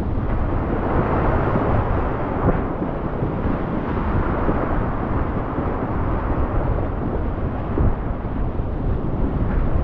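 Glacier-fed alpine river in flood, its whitewater rushing and splashing right around a kayak, picked up close by a GoPro on the boat: a loud, steady rush of water that never lets up.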